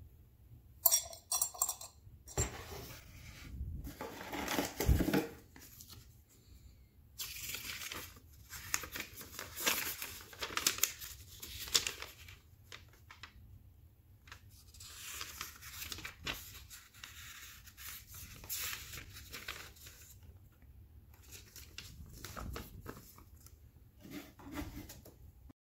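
Handling noise: stainless steel sink strainer parts knocked and clinked in the hands, then paper rustling as a printed instruction booklet's pages are turned.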